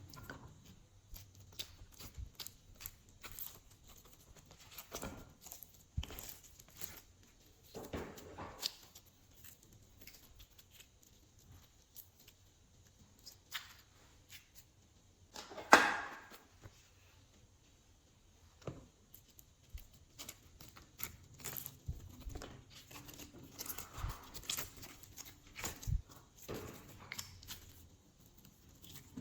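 Glossy slime being worked by hand: scattered sticky clicks and crackles as it is squished and mixed, with one much louder pop about halfway through.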